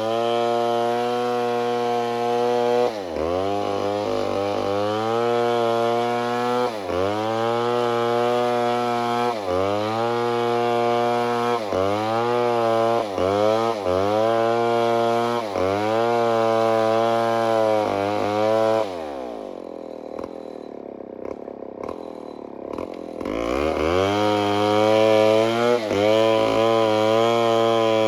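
Two-stroke chainsaw running at high revs, its engine speed dipping briefly and recovering every second or two. About two-thirds of the way through it drops to idle for a few seconds, then revs back up.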